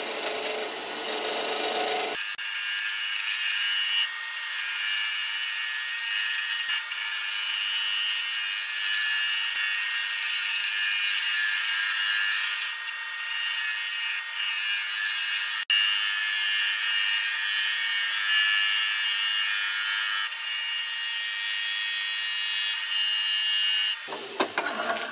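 Small wooden pieces spinning on a wood lathe while a tool or abrasive is held against the turning surface: a steady rasping hiss with a faint high whine. It sounds thinner after about two seconds and stops just before the end.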